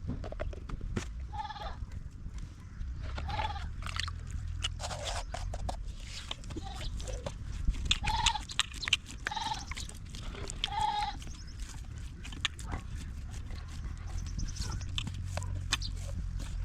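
A herd of goats bleating: about five short calls spread out, several of them close together near the middle, over a steady low rumble.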